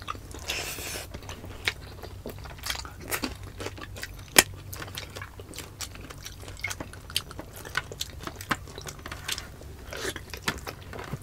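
Close-up eating sounds of people eating with their hands: chewing, lip smacks and finger licking, with scattered small crunches and clicks and one sharper snap about four seconds in.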